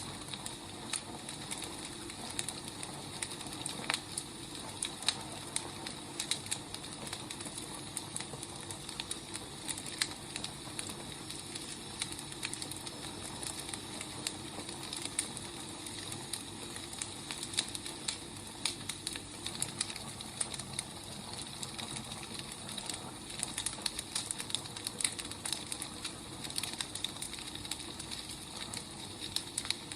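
Wood fire burning, with a steady hiss and many irregular crackles and pops.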